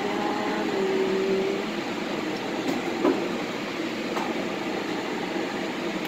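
Steady whirring hiss of a running fan, with a couple of faint clicks about three and four seconds in.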